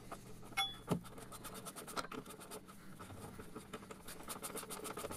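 Faint quick ticking and scraping as a socket is turned on a bolt of the car's rear axle mounting plate, with a couple of sharper clicks near the start.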